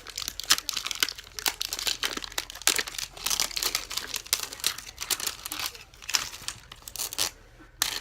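Wrapping layers of an L.O.L. Surprise doll ball being torn and unwrapped by hand: repeated irregular crinkling and tearing.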